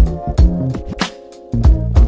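Background music with a drum beat, a bass line and held chords.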